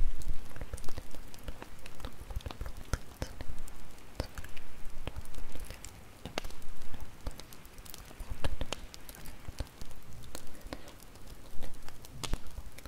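Bonfire crackling, with many small irregular snaps and pops over a low rumble.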